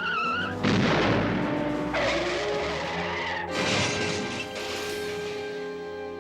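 Car-chase sound effects: a car skidding, with three loud noisy bursts of screeching and crashing over background music.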